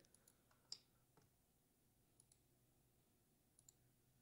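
Near silence broken by a few faint, scattered computer mouse clicks.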